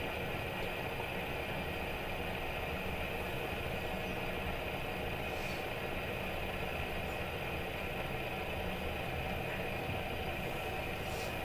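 Fidget spinner whirring steadily on its bearing, a constant hum with a thin high tone and no change in pitch.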